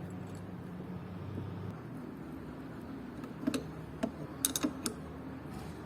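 A steady low hum, then a quick run of five or six sharp mechanical clicks a little past the middle, the sound of small parts knocking together.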